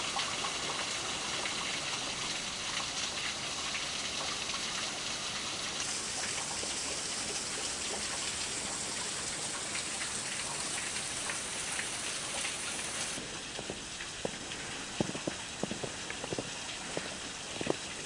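Steady hiss of water trickling and splashing beneath and behind the frozen waterfall and stream ice. A few short sharp crunches come through near the end.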